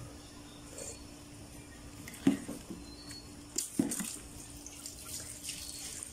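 Long metal ladle knocking against a metal cooking pot and stirring beef soup: two sharp clanks about a second and a half apart, followed by sloshing and scraping of the broth.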